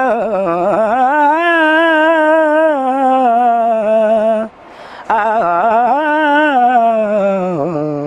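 An older man singing unaccompanied, drawing out long, ornamented notes whose pitch wavers and slides, in two long phrases with a short breath about halfway through.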